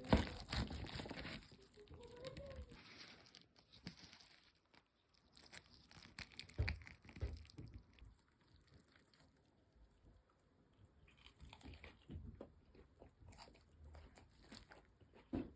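Close-up crunching and chewing of fried cheese-stuffed chicken breast, in irregular bites, with the loudest crunches near the start and about a third of the way through.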